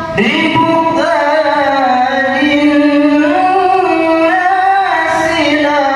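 Male qari reciting the Quran in melodic tilawah, drawing out the word "nadribuha" over long, ornamented held notes whose pitch slides slowly up and down, with a brief breath at the start.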